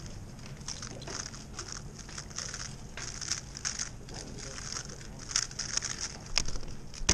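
A WRM 2021 magnetic 3x3 speedcube being turned at speed, a fast irregular clicking and clacking of its layers, with a sharp tap near the end.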